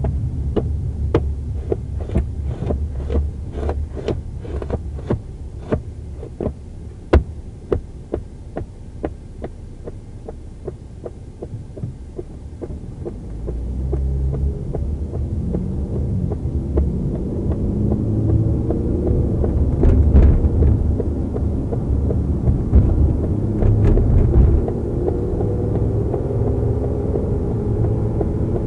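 Inside a patrol car's rear cabin, a regular clicking at about two ticks a second dies away about ten seconds in. From about thirteen seconds a low rumble of the car running on the road builds and holds, with a few knocks around twenty seconds.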